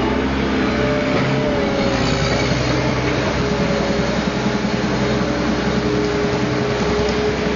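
New Holland L160 skid steer's engine running steadily, with a tone that wavers in pitch over the first few seconds and then holds steady.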